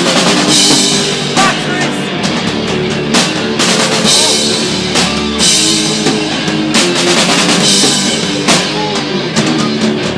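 Live metal band playing: electric guitars, bass and a drum kit with regular cymbal crashes and kick drum. No vocals come through, since the vocal mixer had died.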